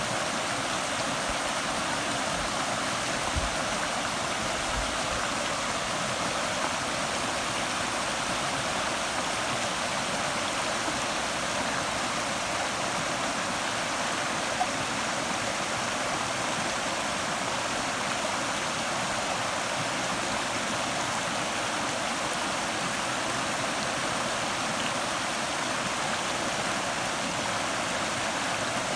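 Shallow stream babbling and rushing steadily over stones.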